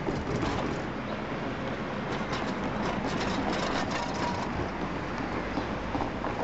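Distant MLW diesel locomotive running with a steady low engine sound, with a scatter of light clicks about two to four seconds in.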